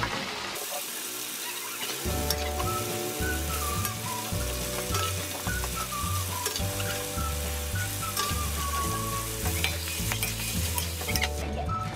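Chicken feet and heads sizzling in hot oil with tomato and ground spice paste in a wok, starting about half a second in, with a spatula scraping and clicking against the pan as they are stirred.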